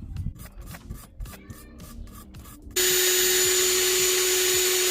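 Light clicks and knocks of parts being handled, then about three seconds in a loud, steady hiss with a faint whistle starts suddenly: an aerosol can of penetrating lubricant spraying.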